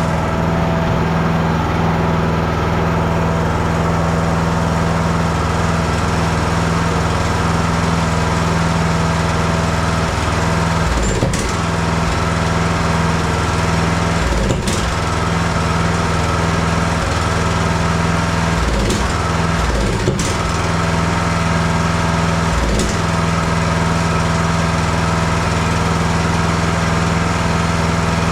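20 hp Briggs & Stratton Intek engine of a riding mower running steadily, its speed dipping briefly and recovering four or five times.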